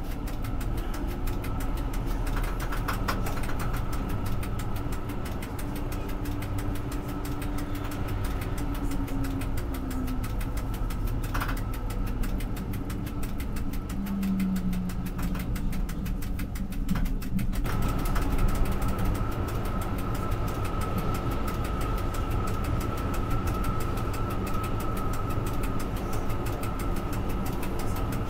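Bus cab interior while driving: the engine runs with a steady low drone and road rumble, and a thin steady whine sounds throughout.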